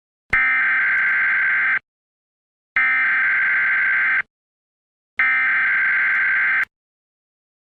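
Emergency Alert System header tones: three bursts of screechy digital data tones, each about a second and a half long, separated by pauses of about a second, announcing the start of an emergency broadcast.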